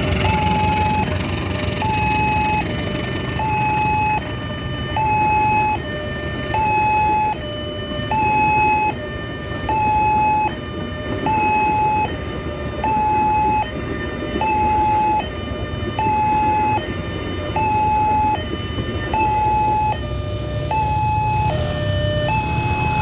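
Railway level-crossing warning siren sounding a two-tone hi-lo wail, a higher note then a lower one, repeating about once a second. A broad rumbling noise sits under it for the first few seconds and again near the end.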